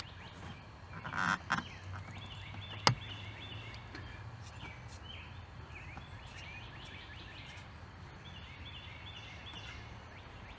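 Hand-tool handling noise at a car's coolant bleeder plug: a brief rustle about a second in and one sharp click near three seconds, over a steady low hum, with birds chirping faintly in the background. The opened bleeder gives no hiss or gurgle, a sign that no pressure or trapped air is escaping at that moment.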